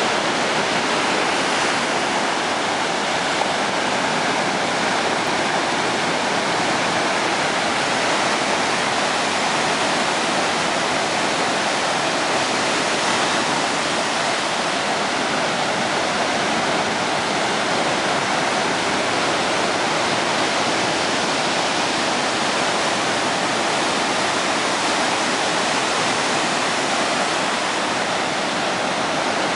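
Ocean surf breaking onto a sandy beach, heard as a steady, unbroken rush of whitewater.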